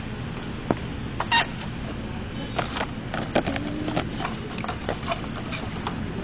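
Short clicks and crackles of plastic packaging and a twist tie being handled while a die-cast model airliner is freed from its box, over a steady background hum. A brief squeak about a second in and a short held tone past the middle.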